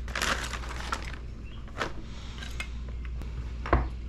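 Plastic packaging rustling and crinkling as it is cut open and handled, with light clicks and clinks of parts and tools on a workbench. A sharper knock comes near the end.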